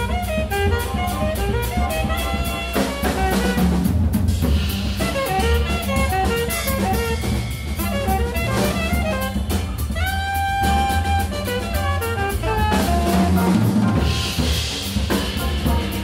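Jazz quartet of alto saxophone, piano, double bass and drums playing an up-tempo tune. A fast melodic solo line of many short notes runs over the bass line and drums, with one long held note about ten seconds in.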